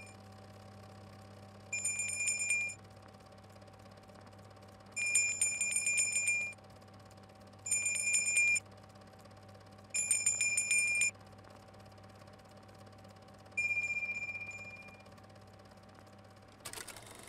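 A bell ringing in five short bursts of rapid strikes, each lasting about a second; the last is a single ring that fades out. A low steady hum sits underneath.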